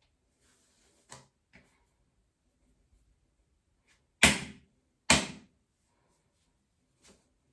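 Two loud, sharp smacks about a second apart, with a few faint taps before and after.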